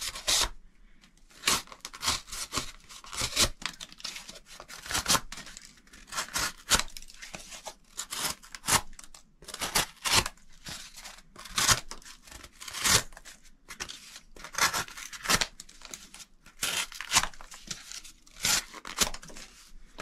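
Ozark Trail D2 folding knife slicing through corrugated cardboard in many short, irregular cutting strokes.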